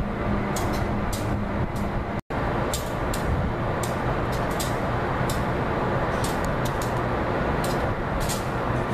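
Steady rumble of an Amtrak diesel locomotive running as it moves slowly through the rail yard, with frequent short sharp ticks over it. The sound cuts out for an instant a little over two seconds in.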